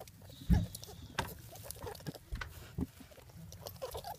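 A hand rustling through dry hay and fur in a rabbit's nest, with scattered soft crackles and a few dull thumps, the loudest about half a second in.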